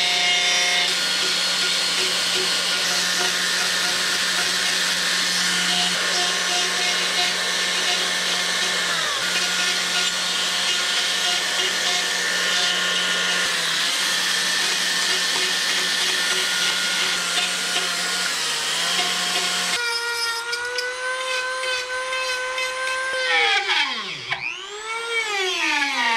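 Makita battery chainsaw with an 8-inch bar running and cutting into wood: a steady electric motor whine that sags briefly a few times under load. About 20 seconds in it gives way to the higher, cleaner whine of a small hand-held rotary carving tool, whose pitch swoops down and back up twice near the end.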